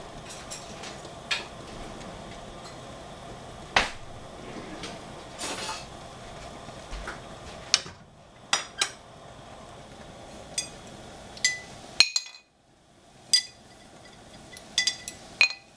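Scattered sharp clinks and knocks of metal and china kitchenware being handled, about a dozen in all, some ringing briefly, over a low steady hiss that fades about halfway through.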